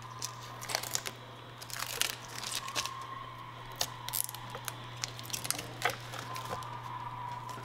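Protective plastic film being peeled and crinkled off a new monitor stand, in irregular crackles and rustles.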